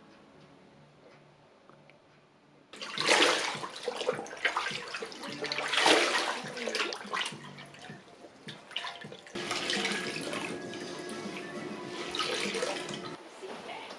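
Water splashing and pouring, in several loud swells, settling into a steadier running flow from about nine seconds in. Soft music plays faintly before the water starts.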